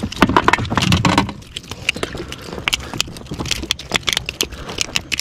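Fishing tackle being handled: a run of irregular clicks and rattles.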